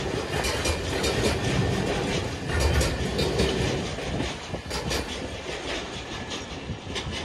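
Empty log-carrying freight wagons rolling past, their wheels clicking in a rhythm over the rail joints. The sound fades as the end of the train goes by.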